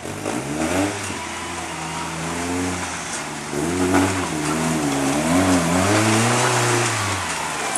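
Off-road rail buggy's engine revving up and falling back again and again as it works up rocks, with about five surges of throttle.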